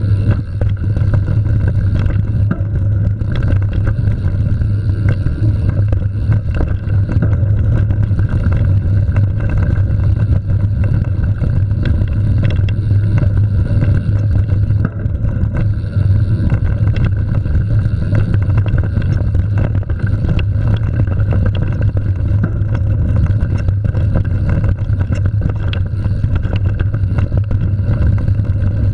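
Mountain bike riding fast on a dirt singletrack: a steady loud rumble of tyres on the trail and wind buffeting the microphone, with frequent small clicks and rattles from the bike over bumps.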